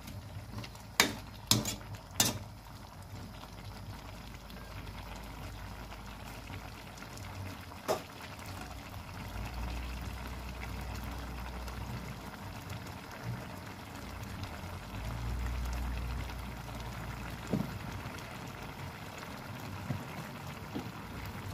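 Squash and moringa leaves simmering in coconut milk in a metal pan: a steady soft bubbling. A few sharp clicks of a spatula against the pan come in the first two seconds, and another near the middle.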